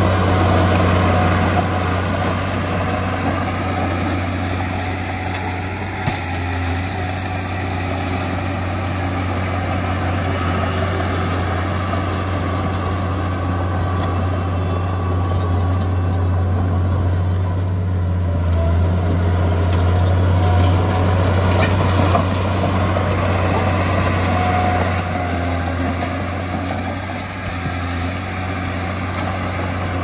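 Heavy diesel construction machinery running steadily: a deep, even engine drone.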